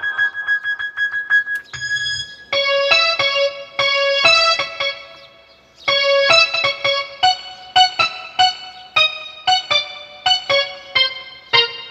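Novation MiniNova synthesizer playing a patch. A single high note repeats rapidly for about the first two seconds, then gives way to a rhythmic pattern of short, plucked, electric-piano-like notes. The notes pause briefly near the middle and then carry on.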